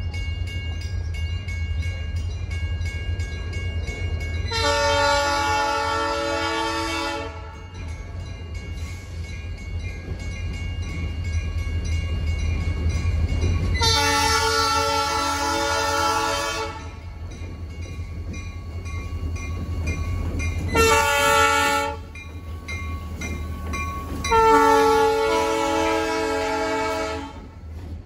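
SWP diesel freight locomotives approaching and passing with the air horn sounding the grade-crossing pattern: two long blasts, a short one, and a long one. The diesel engines' low rumble runs underneath.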